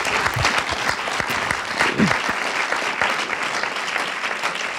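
Audience applauding, many hands clapping steadily, with a brief voice sound about two seconds in.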